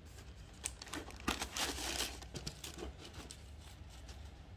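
Tissue paper in a cardboard shoebox crinkling and rustling as a hand pushes it aside and lifts a running shoe out. The crackles come in irregular bunches and thin out near the end.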